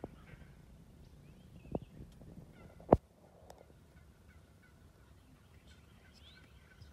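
Osceola wild turkey gobblers calling and gobbling. Two sharp knocks come a little over a second apart near the middle, and the second is the loudest sound.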